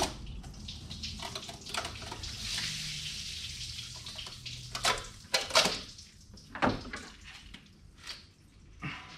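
Hydraulic roller lifters and their plastic lifter tray being worked loose and lifted out of an LS V8's lifter valley: a series of sharp clicks and clacks, the loudest about five and six and a half seconds in, with a hissy rustle a couple of seconds in.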